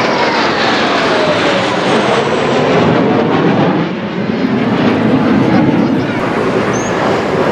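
Two Kawasaki T-4 jet trainers, each with twin turbofan engines, passing overhead and climbing away: loud jet engine noise with a whine that falls in pitch over the first couple of seconds, then a lower rumble that swells and eases off in the second half.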